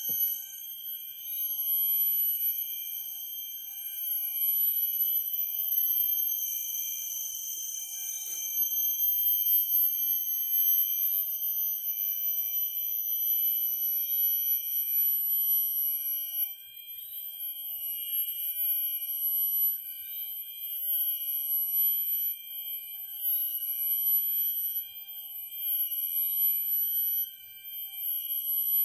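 Tropical forest insect chorus: several steady, high-pitched drones layered together, with a short rising chirp repeating every second or two.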